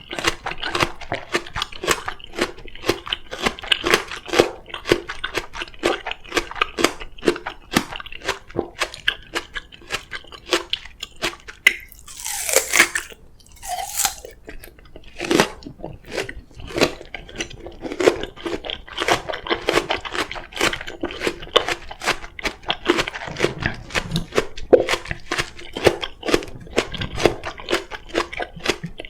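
Close-miked chewing of raw Korean oriental melon (chamoe): a dense run of crisp crunching bites and wet chewing, with a brief louder noisy burst near the middle. Crackling from a faulty microphone runs under it.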